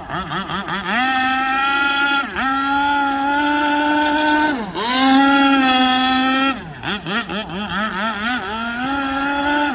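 Zenoah 32cc two-stroke petrol engine of an RC fountain-hull speedboat running across the water. It opens with quick throttle blips, then holds three sustained high-rev runs, each cut by a brief throttle chop, and gives a string of rapid blips about two-thirds through before settling to a steady run again.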